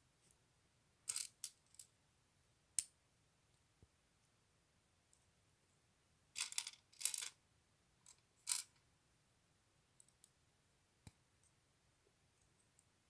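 Plastic LEGO pieces clicking and clattering in short bursts: a cluster about a second in, a single click near three seconds, a longer rattle around six to seven seconds, and another click at eight and a half seconds.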